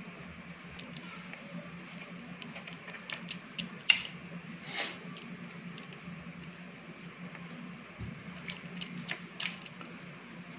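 A knife scoring soft dough on a parchment-lined baking tray: light clicks and scrapes of the blade against paper and tray, with one sharp click about four seconds in followed by a brief rustle, and a few more light clicks near the end, over a steady low hum.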